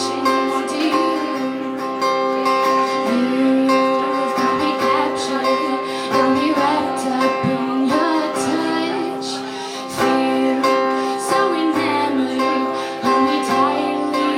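A woman singing with a strummed acoustic guitar, performed live.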